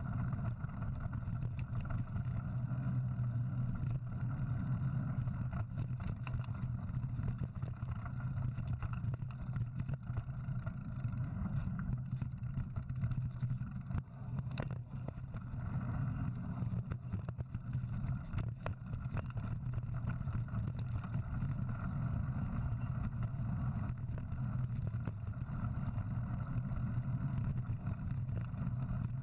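Steady low rumble of wind and knobby tyres on a dirt trail, heard through a bike-mounted action camera while riding a mountain bike. A few sharp clicks of rocks or the bike rattling come about halfway through.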